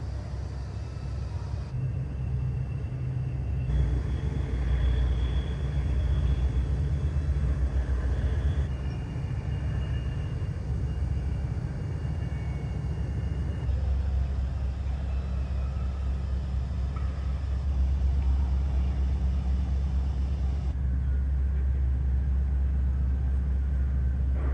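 Steady low rumble of harbour background noise, with a faint thin high whine over parts of it. The rumble shifts abruptly several times.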